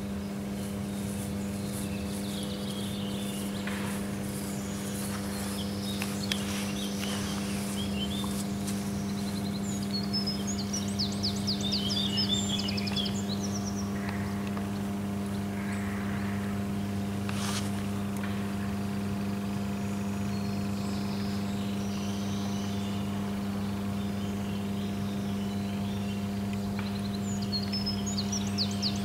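A steady low hum made of several even tones that never changes, with songbirds chirping in quick phrases, about ten seconds in and again near the end.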